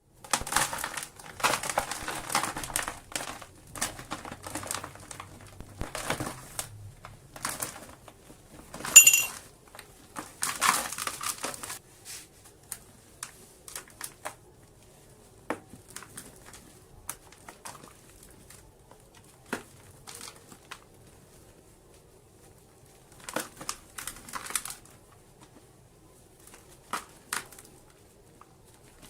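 Slabs of soft dirt crumbling and crunching in bursts, dense for the first dozen seconds, then thinning to scattered small crackles with a few more bursts later. A brief high squeak about nine seconds in is the loudest moment.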